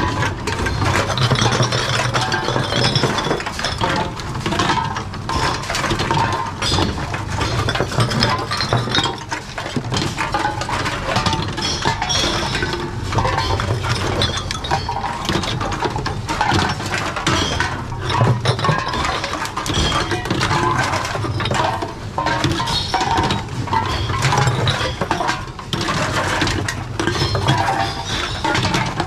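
Reverse vending machines taking in glass bottles and drink cans: glass and metal containers clink, clatter and break continuously, over a steady low machine hum.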